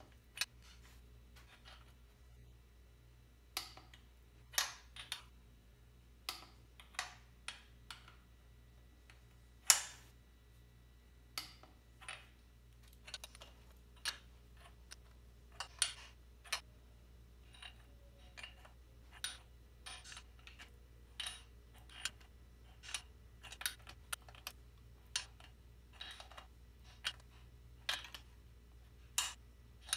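A ratchet torque wrench clicking as the cylinder head nuts are tightened to 30 ft-lb. The clicks are sharp and irregular, some single and some in quick clusters, with one louder click about a third of the way in.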